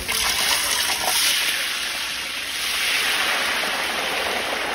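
Raw potato slices dropping into a wide iron pan of hot oil, the oil sizzling hard as they go in to deep-fry into chips. The hiss swells about a second in and again around three seconds.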